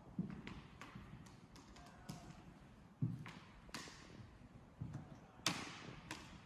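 Faint, irregular footsteps and taps on a wooden floor, with a louder thud about five and a half seconds in.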